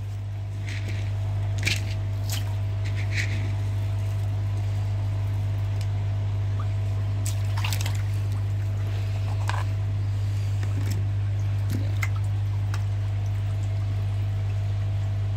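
Koi feeding at the pond surface, with scattered small splashes over trickling water and a steady low hum.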